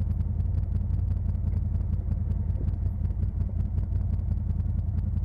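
Side-by-side UTV engine running steadily, a low drone with a rapid, even pulse.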